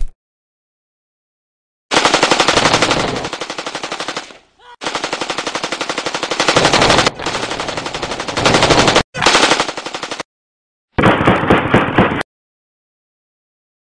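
Dubbed automatic-rifle fire sound effects: a single shot at the very start, then long rapid bursts from about two seconds in, each cut off abruptly into dead silence. The last burst, about eleven seconds in, sounds duller.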